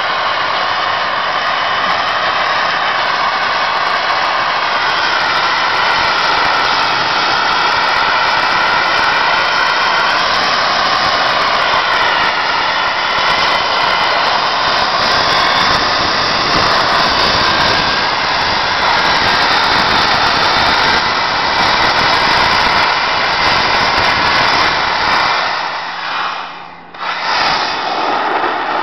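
Sandblaster nozzle running: a loud, steady hiss of compressed air and abrasive grit blasting paint off the locomotive's cab sheet. It cuts out briefly near the end and starts again.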